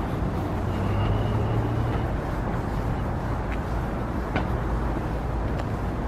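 Steady low rumble of distant city traffic, with a few light footsteps on a wooden boardwalk about a second apart near the end.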